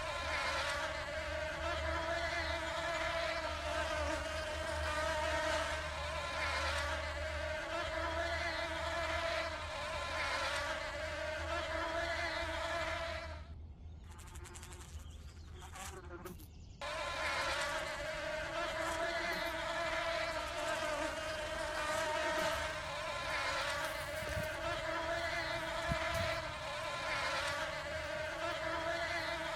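Steady high-pitched buzzing of bees, wavering slightly. It drops out for about three seconds midway, then comes back.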